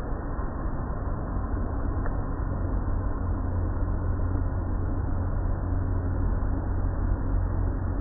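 Automatic tunnel car wash heard from inside the car: a steady rumble of the wash machinery, with water spraying and the hanging cloth strips sweeping over the car.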